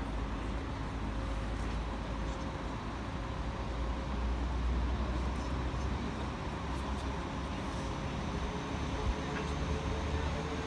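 Northern Class 195 diesel multiple unit running slowly past, a steady low engine rumble with a faint steady hum that swells slightly midway.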